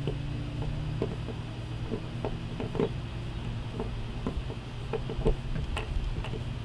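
Scattered light clicks and ticks of a screwdriver turning a screw out of a paddle board's centre fin box, at irregular intervals over a steady low hum.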